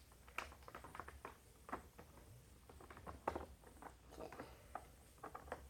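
Faint, irregular clicks and rustles of small objects being handled up close.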